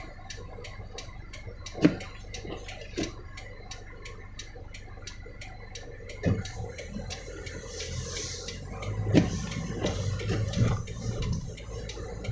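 Rapid, steady ticking, about four or five ticks a second, with a few louder knocks and thuds and a brief rush of noise about eight seconds in.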